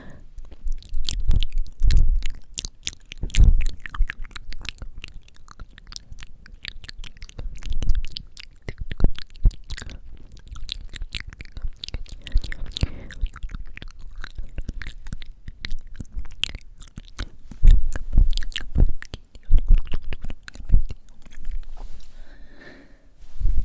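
Close-miked ASMR mouth sounds: dense, moist lip and tongue clicks and smacks. Breath hits the microphone now and then as low puffs of wind noise.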